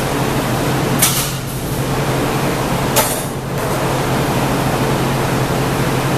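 Steady loud roar of a glassblowing studio's burners and fans with a low hum, broken twice by a sharp metal click about two seconds apart as the blowpipe and tools work at the steel bench.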